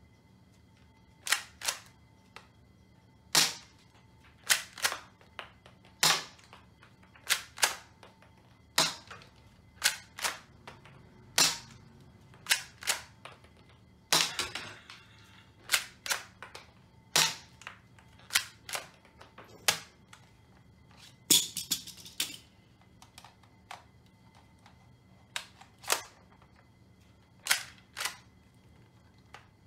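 Toy Colt 1911 shell-ejecting soft-bullet pistol being racked and fired again and again: a long run of sharp plastic snaps from the slide and the shots, often in quick pairs, about one every second or so.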